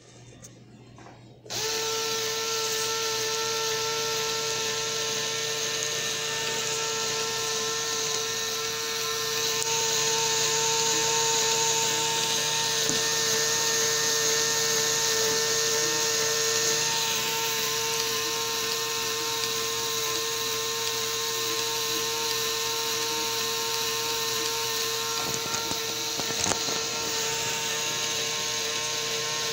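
Lego Technic gear train driven by a small electric motor, starting up about a second and a half in and then whirring with a steady whine and plastic gear chatter. It gets a little louder for several seconds near the middle.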